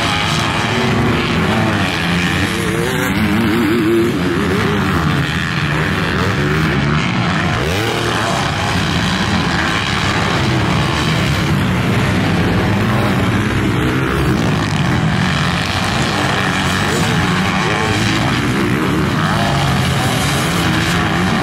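Several motocross bikes racing, their engines revving up and falling back over and over in overlapping pitches.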